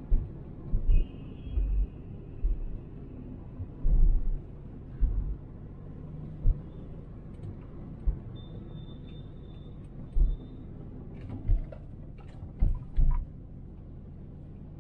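A car driving, heard inside its cabin: a steady low road rumble broken by irregular deep thumps from bumps in the road, with a few sharp clicks and knocks about eleven to thirteen seconds in.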